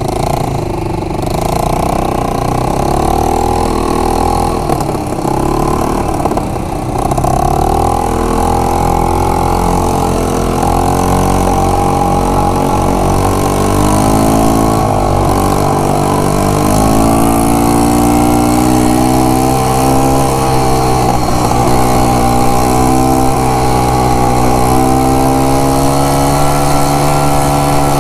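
Yamaha Grizzly 125 quad bike's single-cylinder engine running under way, its pitch wavering with the throttle. Around the middle the revs drop and then climb back quickly, and they hold fairly steady after that.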